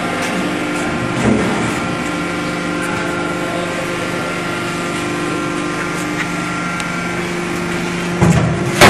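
Hydraulic power unit of a four-column deep drawing press humming steadily with several held tones. Near the end come two loud knocks as the drawn sheet-steel wheelbarrow tray is set down on the floor.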